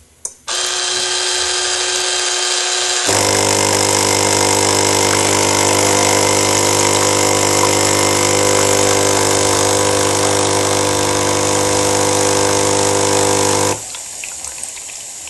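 Espresso machine's water pump buzzing as it runs. It starts with a click and a lighter hum, drops into a louder, lower steady buzz about three seconds in, and stops abruptly near the end.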